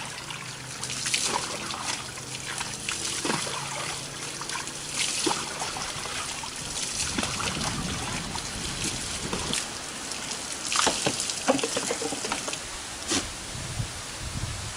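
Water trickling and splashing in irregular pours, as a person bathes by pouring water over themselves.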